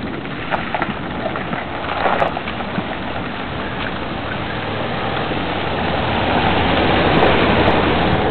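Rain falling steadily during a thunderstorm, with scattered sharp drip clicks. The noise swells louder in the last few seconds.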